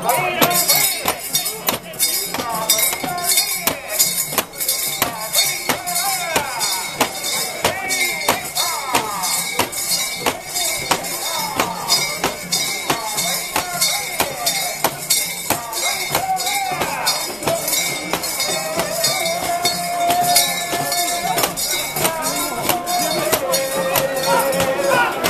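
Mikoshi portable shrine being carried and jostled by its bearers, its hanging metal bells and fittings clanking and jingling in a rapid, irregular clatter. The bearers' shouts and calls run alongside, with long held calls in the second half.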